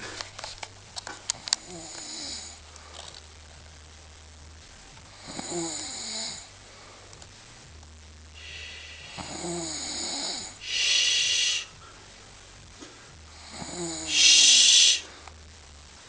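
A sleeping woman snoring, a rough snore on each breath about every three to four seconds, the two loudest rasping snores in the second half. A few faint clicks in the first couple of seconds.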